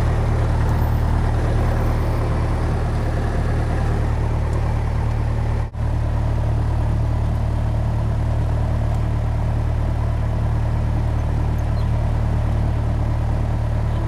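Piston engine and propeller of a four-seat single-engine light plane droning steadily, heard from inside the cabin. The sound cuts out for a split second about six seconds in.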